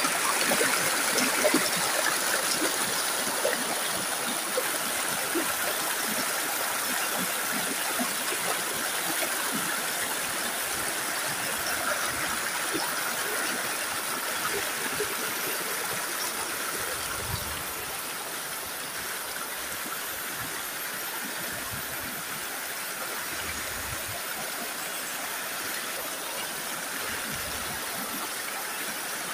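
Shallow rocky stream rushing and gurgling over and around boulders, a steady rush of water that grows a little quieter about halfway through.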